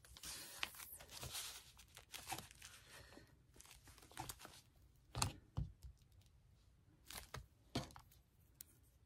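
Paper pages of a handmade junk journal rustling and sliding under hands, followed by several light knocks of small objects handled on the table in the second half.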